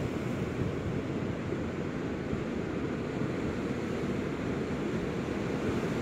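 Steady rushing noise of wind buffeting the microphone, mixed with surf breaking on the beach. No drone motor is heard.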